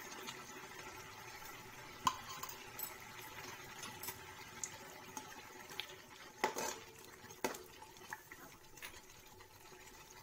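Slotted spatula stirring onions, garlic and ginger paste frying in oil in a pan, scraping and knocking against the pan over a faint steady sizzle. The loudest knocks come about two seconds in and twice between six and a half and seven and a half seconds.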